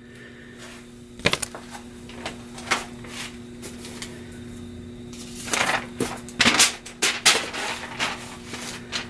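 Scattered clicks and light knocks, a few early and a denser cluster past the middle, over a steady low hum.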